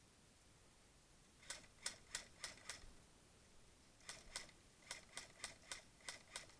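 Airsoft guns firing in quick semi-automatic runs, a series of sharp clicking shots: a group of five, then two, then six, at about three to four shots a second.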